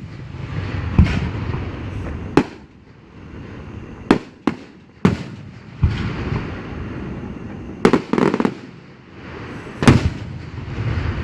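Fireworks display: aerial shells bursting with sharp booms, several in quick succession around eight seconds in and a strong one near the end, with crackling and rumbling echo between them. The booms have a hollow, cannon-like sound.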